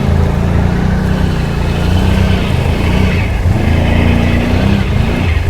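ATV engine running hard under load, its pitch rising and falling as the quad pushes through a boggy water crossing.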